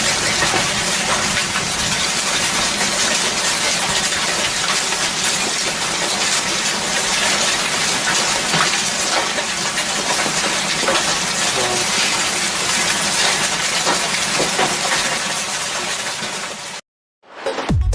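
Hailstones pelting hard surfaces amid heavy rain: a loud, dense patter of small sharp impacts over a wash of water. It cuts off suddenly about 17 seconds in, and electronic music starts just before the end.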